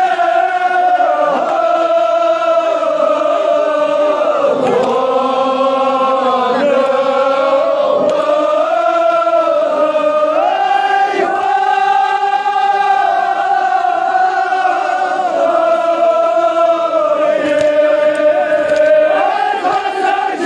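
A large crowd of men chanting a noha (Shia lament) in unison, holding long notes that step up or down in pitch every second or two.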